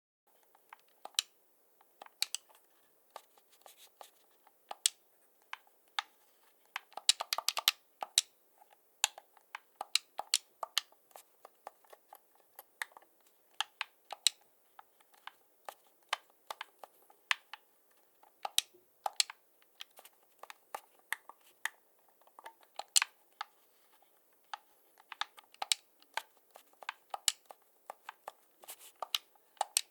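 An irregular series of sharp, short clicks, one to a few a second, with a quick flurry of them about seven seconds in.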